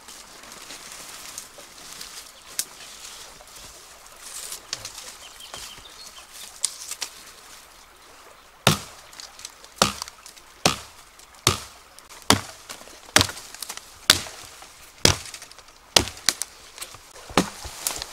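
A blade chopping into a tree branch: about ten sharp, evenly paced strokes, roughly one a second, starting about halfway through. Before them, quiet rustling of branches and leaves with a few small snaps.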